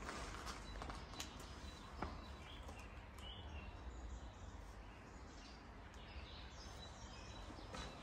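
Faint birds chirping outside over a low, steady background rumble, with a few soft knocks, the loudest about two seconds in.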